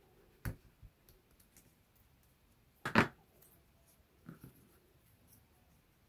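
Thin wooden model-kit parts being handled and fitted together by hand: a few light clicks and knocks, the loudest about three seconds in.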